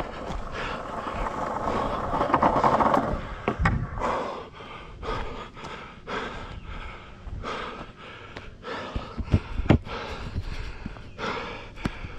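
Skateboard wheels rolling over rough concrete, a steady grinding rumble with sharp clacks as the wheels cross cracks and seams, heard through the board-mounted camera.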